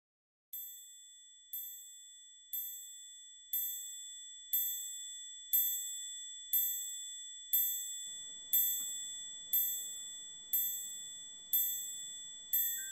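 A high-pitched chime struck evenly about once a second, each stroke ringing on and fading before the next.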